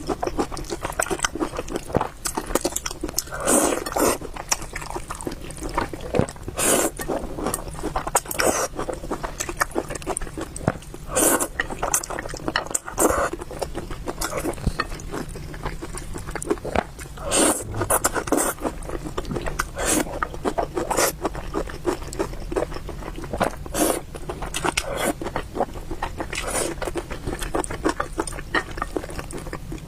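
Close-miked mouth sounds of someone eating spicy beef noodles: chewing and slurping in short bursts every second or two.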